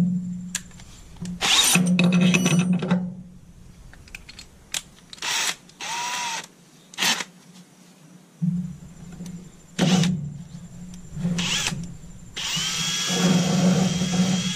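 Cordless 24-volt drill running a hole saw through a wooden truck-bed floor, in several short bursts with the motor speeding up and slowing down, then a longer steady cut from about twelve seconds in.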